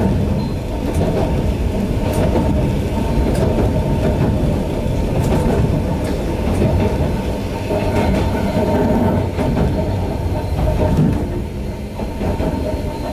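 A 260 Series narrow-gauge electric train running, heard from its cab: a steady rumble of wheels on the rails, with occasional clicks as the wheels pass rail joints.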